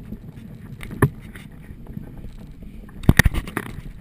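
Water washing along a Thistle dinghy's hull under way, with wind on the microphone. A single knock about a second in, then a quick cluster of louder knocks near the end.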